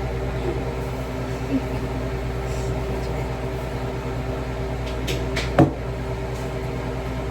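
Countertop blender motor running steadily with a continuous hum while blending ice and juice into a slushie. A sharp knock comes about five and a half seconds in.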